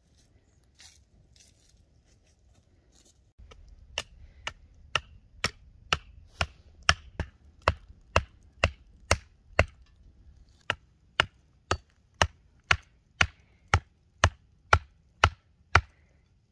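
Axe knocking a wooden stake into the ground, starting about four seconds in: sharp wooden blows at about two a second, roughly two dozen in all.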